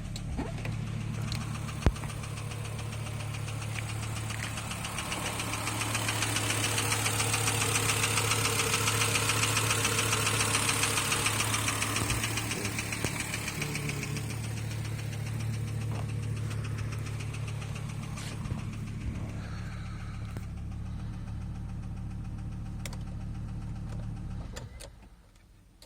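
Volvo S70 T5's turbocharged five-cylinder engine running with a fast, even knock that keeps pace with the engine, which the owner takes for rod knock. It is louder for several seconds in the middle, then settles and is switched off near the end.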